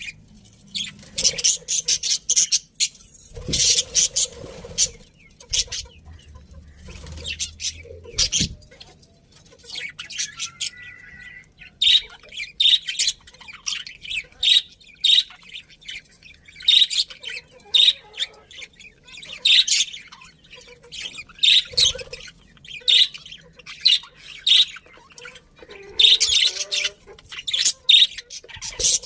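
Budgerigars chirping and chattering in quick, busy bursts of short high notes, with a brief thin whistle about ten seconds in and a few soft low thumps.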